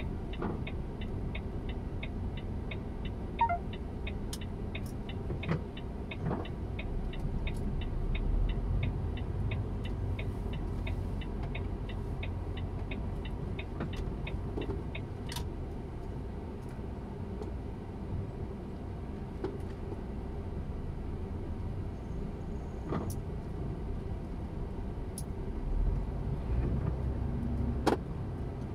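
Inside a truck cab at low speed: the engine rumbles steadily and swells twice. For the first half the turn-signal relay ticks at a steady quick pace, then stops, with a few scattered knocks from the cab.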